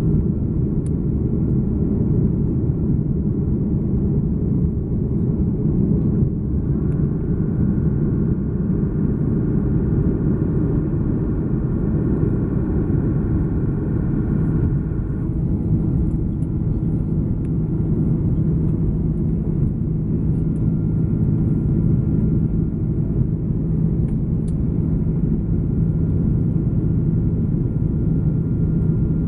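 Airbus A330-300 airliner's jet engines at takeoff: a steady, loud low rumble with a constant hum in it. A fainter, higher whine joins from about six to fifteen seconds in.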